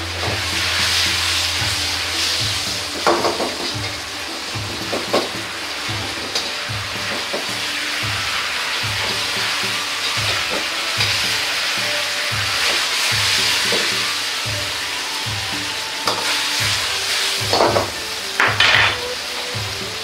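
Hamburg steaks sizzling in a ketchup-and-sauce glaze in a wok, with the steel ladle clanking against the wok now and then. Two of the clanks come close together near the end.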